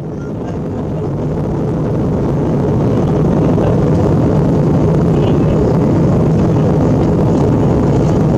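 Cabin noise inside an Airbus A320 in flight: a steady rumble of engines and rushing air, rising in level over the first few seconds, then holding steady.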